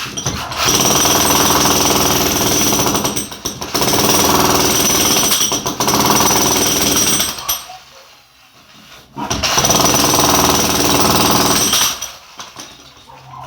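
Jackhammer chipping into a solid concrete wall to cut a channel for an electrical circuit line, hammering in two long runs with a pause of about a second and a half between them.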